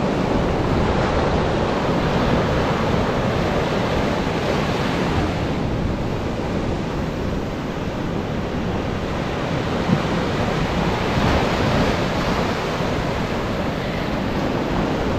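Ocean surf washing steadily on the shore, with wind noise on the microphone.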